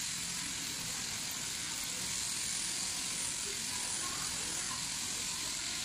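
Electric sheep-shearing handpiece on an overhead-drive shearing plant running steadily as it cuts through the fleece: a continuous high-pitched hiss and whirr.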